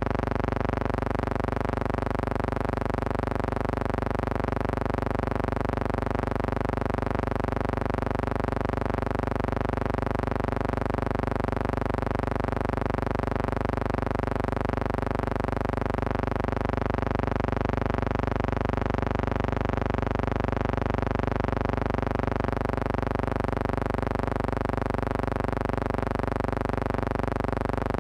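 Steady electrical hum with many overtones, unchanging throughout, its loudness pulsing slightly about once a second.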